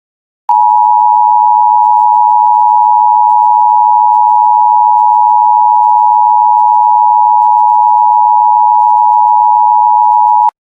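Emergency Alert System attention signal: the two-tone alert (853 and 960 Hz together) held steady for about ten seconds. It starts about half a second in and cuts off sharply near the end.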